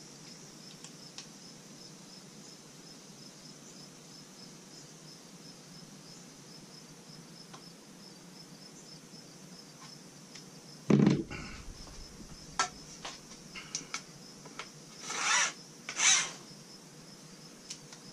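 A faint, steady high pulsing chirp over quiet room hum. About eleven seconds in comes one heavy knock, then a few sharp clicks and two short scraping rasps as the pole's clamp hardware is handled and tightened.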